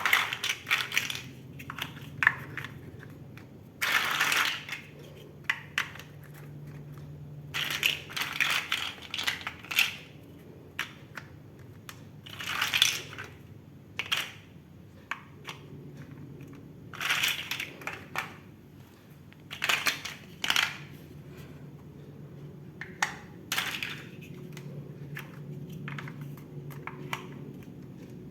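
Plastic Lego bricks clattering and clicking as they are handled and snapped together, in irregular clusters of sharp clicks with short pauses between.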